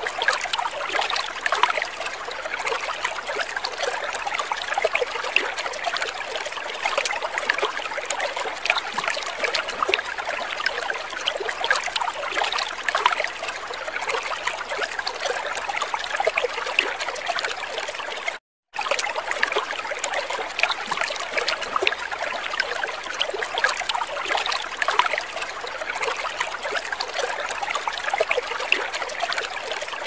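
Water trickling and splashing steadily, a dense patter of small drips and splashes. It cuts out completely for a split second about eighteen seconds in, then carries on unchanged.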